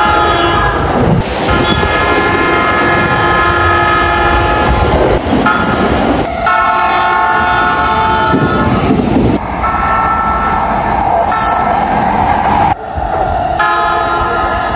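Japanese electric commuter trains sounding their horns in a run of separate clips: about four steady multi-note horn blasts, each a couple of seconds long, over train running noise, with abrupt cuts from one train to the next.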